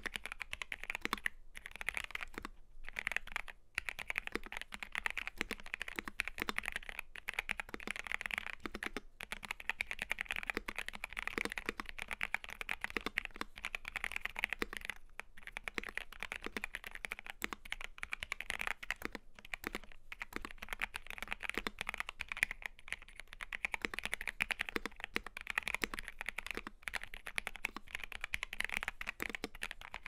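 Fast, continuous typing on a Dark Project KD68A Limited mechanical keyboard with lubed Gateron Red linear switches and XDA PBT keycaps: a dense, even patter of key clacks with a few brief pauses.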